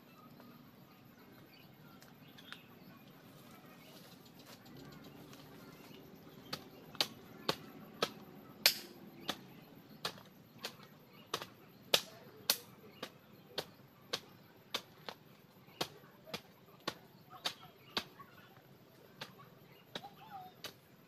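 A steady run of sharp strikes or chops, about two a second, starting about six and a half seconds in and going on until near the end.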